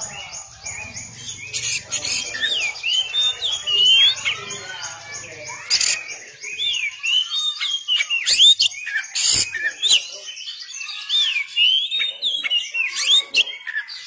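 Oriental magpie-robin (kacer) singing a fast, varied song of whistled notes and sharp chirps that swoop up and down in pitch. A fast, even, high ticking runs under it for the first few seconds.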